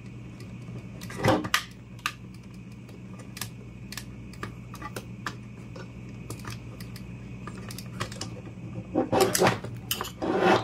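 Scattered small clicks and scrapes of a screwdriver working at a screw and of hands handling the oscilloscope's sheet-metal chassis and circuit board, with a louder knock about a second in and a cluster of louder knocks near the end.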